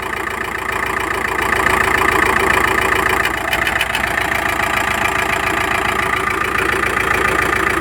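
Volkswagen T5 engine idling evenly, not misfiring, with a rhythmic knock that seems to come from under the valve cover; its cause is still unknown.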